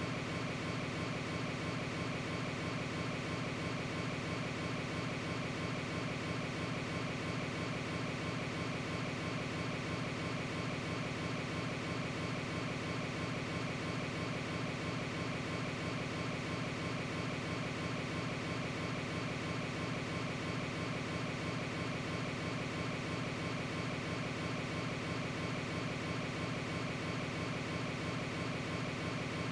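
A steady hum made of several held tones, even and unbroken.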